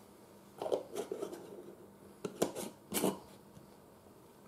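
A handful of short clicks and scrapes from a metal spoon and a plastic screw lid handled against a glass jar of cocoa powder, then the jar being lifted and moved on the table.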